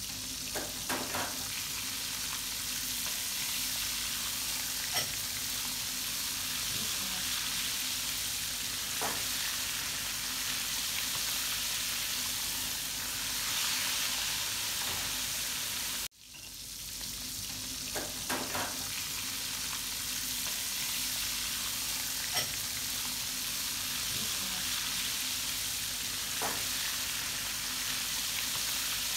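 Battered red snapper pieces deep-frying in hot oil: a steady sizzle with a few sharp pops. It cuts out abruptly about halfway through, then comes back.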